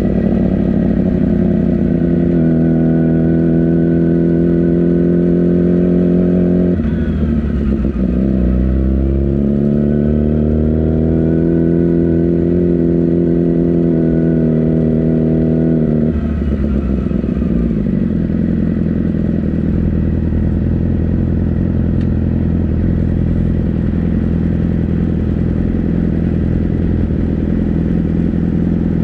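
Race motorcycle's engine, heard up close from a camera mounted on the bike, running at low revs as it rolls slowly. About seven seconds in its pitch dips and climbs back up. About sixteen seconds in it settles to a lower, steady idle.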